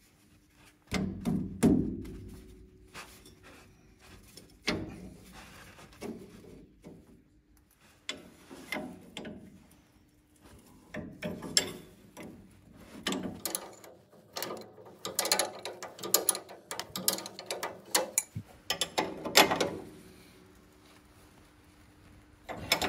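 Spanner work on the bolts and nuts of a coil-spring clamp: a few metal knocks early on, then repeated bursts of quick clicking as the nut is run down on its bolt.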